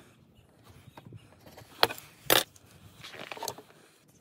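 Hand tools being handled on a wooden post: two sharp clicks about half a second apart as a steel rule and pencil are set against the wood, followed by softer scraping and handling noise.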